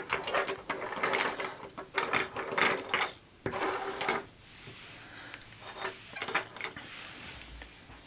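Small plastic Jyudenchi toy batteries clicking and clattering against each other and a wooden tabletop as they are gathered up and stood in rows. The clatter is busy for the first four seconds or so, then thins to a few scattered clicks.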